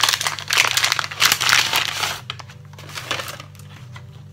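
Paper wrapping crinkling and rustling as a package is unwrapped by hand, in quick bursts for about two seconds, then dying down with one last rustle about three seconds in.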